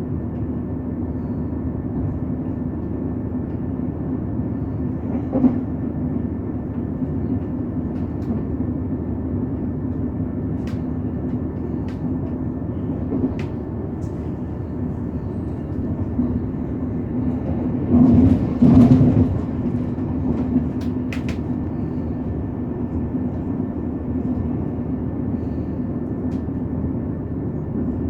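Passenger train running along the line, heard from on board: a steady rumble with a low hum, scattered light clicks, and a louder surge of rumble about two-thirds of the way through.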